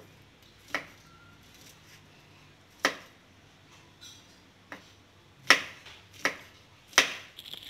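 Kitchen knife slicing meatballs on a wooden cutting board: six sharp knocks of the blade meeting the board, a couple of seconds apart at first, then closer together and louder over the last few seconds.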